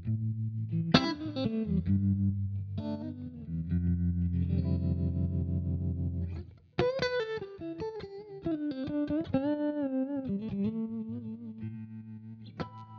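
Stratocaster-style electric guitar played through a vibe/boost pedal, the tone swelling and dipping in a steady pulse. Strummed chords and a held low chord that stops suddenly give way to single-note lines with bent, wavering notes, then a final struck chord.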